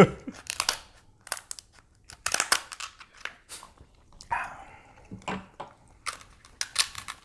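King crab leg shells being cracked and snapped apart by hand: a run of short, sharp cracks and crunches.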